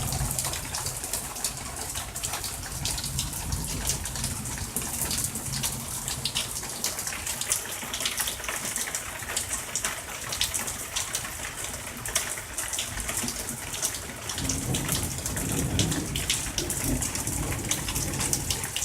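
Heavy thunderstorm rain falling straight down with little wind: a steady hiss of rain with a dense patter of sharp drops and drips.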